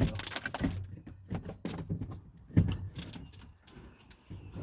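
Scattered knocks, clicks and scrapes of plastic refrigerator panels being handled, with one louder knock about two and a half seconds in.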